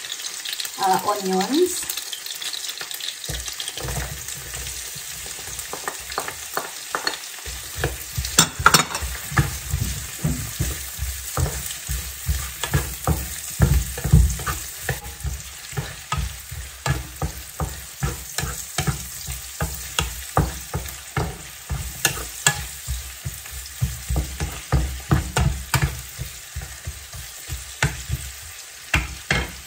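Chopped onions and garlic sizzling in hot oil in a frying pan, stirred with a wooden spatula that knocks and scrapes against the pan about twice a second from several seconds in.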